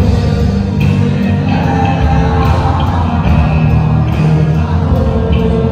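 A live rock band playing loud through the PA: electric guitars and drums keeping a steady beat, with a male singer.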